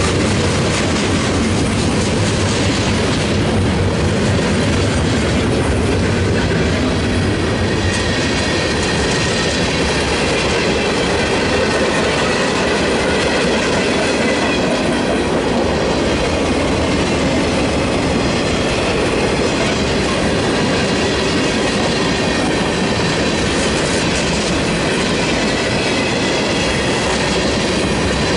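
Freight cars rolling past close by at steady speed: the continuous rumble of steel wheels on rail with the rhythmic clickety-clack of wheelsets crossing the rail joints.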